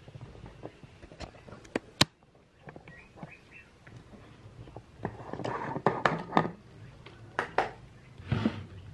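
Scattered light clicks and knocks in a small room, with a sharp click about two seconds in and bursts of rustling from about five seconds in and again near the end.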